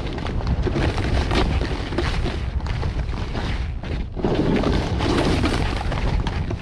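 Wind rumbling on the camera's microphone while a snowboard rides through soft powder, its base and edge hissing and scraping over the snow. The sound swells in surges with the turns, dipping briefly and then growing louder a little past halfway.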